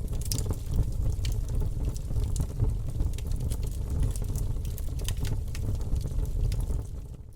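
Wood fire crackling, with irregular sharp pops and snaps over a steady low rumble of burning; the sound drops briefly just before the end.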